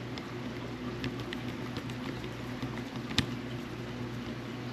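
Faint light ticks from small reel parts being handled during reassembly, with one sharp click about three seconds in, over a steady low hum.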